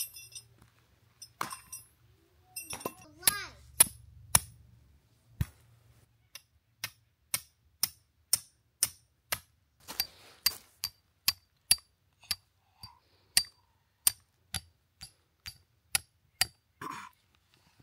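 Hammer striking a metal tent stake, driving it into the ground: sharp ringing metallic taps, a few irregular ones at first, then steady at about two a second until they stop near the end.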